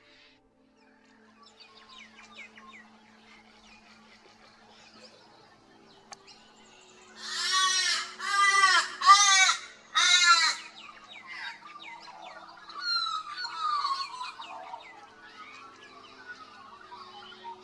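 Morning bird calls: four loud, harsh calls in quick succession about halfway through, each rising then falling in pitch, with quieter chirps and twitters from other birds around them.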